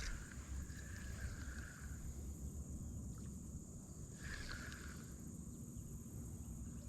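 Outdoor ambience: a low wind rumble on the microphone, a steady high insect-like whine, and a rasping call that repeats about every three seconds.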